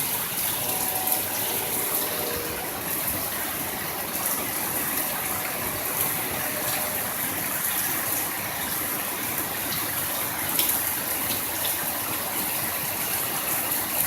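Torrential rain pouring down hard as a steady, dense hiss, with a few sharp ticks from drops hitting close by.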